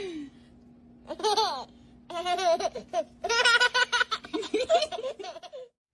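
A person laughing in quick repeated bursts, with a steady low hum underneath; it all cuts off abruptly near the end.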